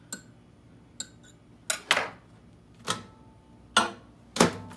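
Sharp clinks and knocks of a glass measuring cup of melted soft plastic being handled and put into a microwave oven, about seven in all. The two loudest come near the end as the microwave door is opened and shut.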